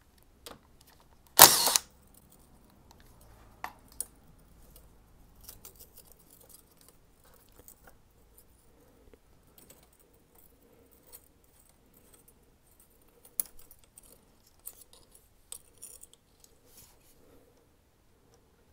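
Small metal tools and parts clinking and rattling while a Torx bolt is undone on a motorcycle fork leg, with one brief louder clatter about a second and a half in.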